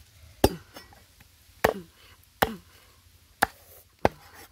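A heavy cleaver chopping through a raw chicken on a wooden chopping block: five sharp chops, roughly a second apart.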